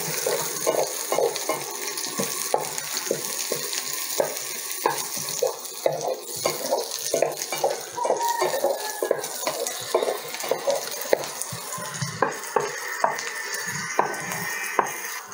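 Small onions, garlic and green chillies sizzling in hot sesame oil in a nonstick frying pan, being sautéed until light brown. A wooden spatula stirs them, knocking lightly against the pan several times a second.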